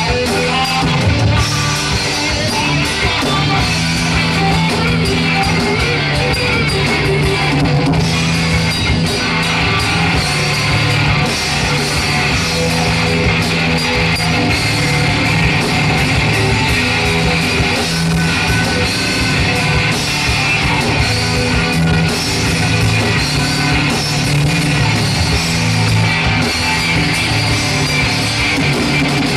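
Rock band playing live: distorted electric guitars over bass and a drum kit, loud and continuous.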